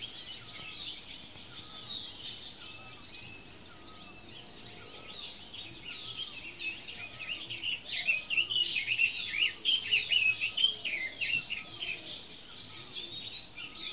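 Several birds chirping and calling, with many short calls overlapping and a softer lower call repeating beneath them. The calling grows busier about halfway through.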